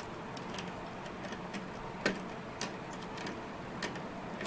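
Small irregular clicks and ticks of a screwdriver turning out the tiny screw of a motherboard's M.2 SSD thermal guard, with one sharper click about two seconds in.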